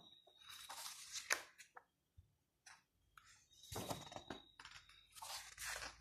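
Pages of a large photo book being turned by hand: soft paper swishes and rustles in about three bursts.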